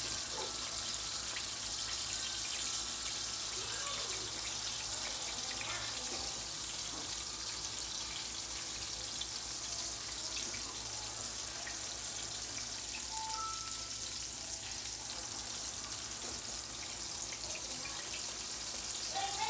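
Steady sizzle of a salmon fillet frying skin-side down in a pan, crisping the skin.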